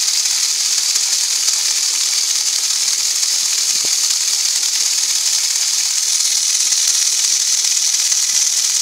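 Electric fan running with an LED bar spinning on it: a steady airy hiss.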